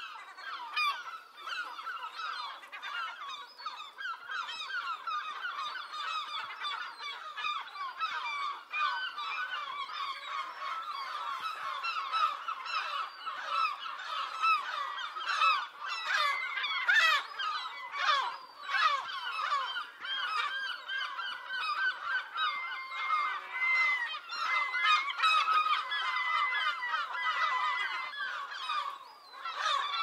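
A large flock of seagulls calling and shrieking, many cries overlapping at once without a break.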